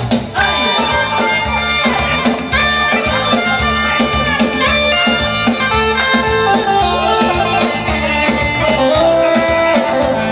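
Loud live dance music from a band playing through PA loudspeakers, led by an electronic keyboard, with a steady beat and a melody of held notes.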